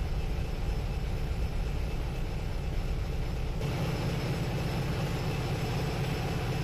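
Steady low drone of shipboard machinery, a hum with a hiss above it that grows louder about halfway through.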